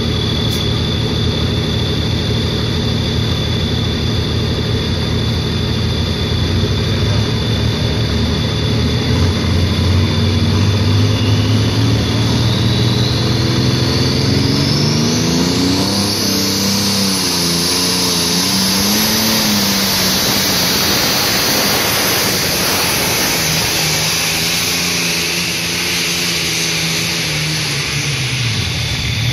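Pulling tractor's engine working hard under load. Its revs climb steadily through the first half with a high whine rising alongside, then hold high with a wavering pitch before falling off near the end.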